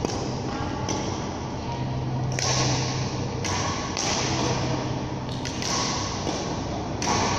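Badminton hall noise: scattered thuds and taps from play on the courts over a steady low hum, with several second-long stretches of hiss.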